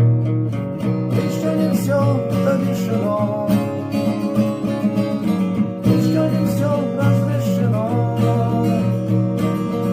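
Music: an acoustic guitar strumming chords with a wavering melody line over it, an instrumental passage of the song.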